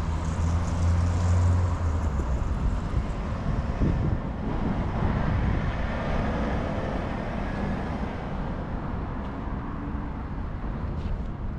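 Street traffic noise: motor vehicles running past, with a deep engine hum over the first two seconds or so.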